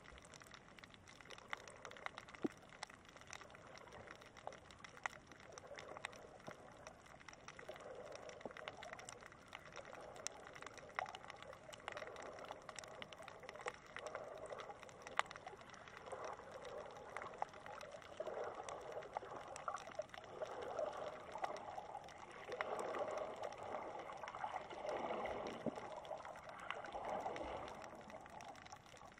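Shallow water moving over a sandy bottom, heard underwater: faint sloshing and gurgling of small waves at the surface, coming in swells that grow louder through the second half, with scattered sharp clicks and crackles.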